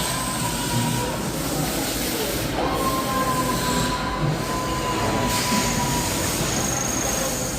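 CNC machine running, a steady mechanical noise with a thin whine whose pitch steps up about two and a half seconds in and fades out a few seconds later, alongside a high-pitched whine.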